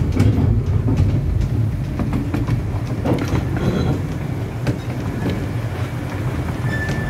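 Running sound heard from a carriage of a 15-inch-gauge miniature railway: a steady low rumble of wheels on the track with irregular clicks and knocks over the rail joints. Near the end a thin, steady high squeal comes in as the wheels run round a curve.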